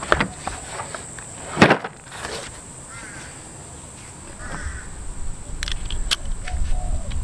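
Steel sockets and a ratchet clinking and knocking as they are handled in a plastic tool case, with a sharp knock about two seconds in and a run of clicks near the end. A steady high insect drone and two short bird calls sit behind.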